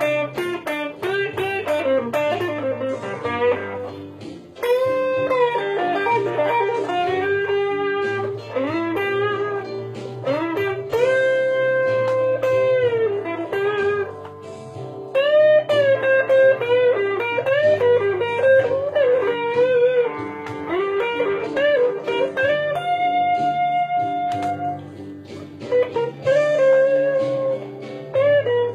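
Fender Telecaster electric guitar playing a lead line, with notes bent up and down and a long held note about two thirds of the way through, over a steady lower accompaniment.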